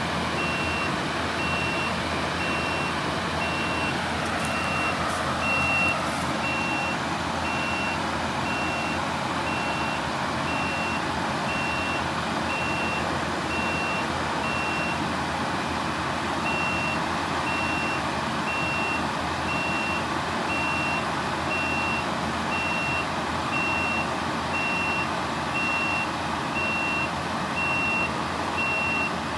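Backup alarm of a Kubota compact track loader beeping steadily over its running engine while the machine is in reverse, trying to back out of the hole it is stuck in. The beeping stops briefly about halfway through, and the engine rises in pitch around four to six seconds in.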